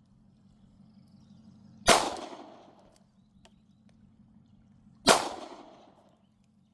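Two shots from a Glock 19 Gen 3 9mm pistol, about three seconds apart, each a sharp crack with a ringing echo that dies away over about a second.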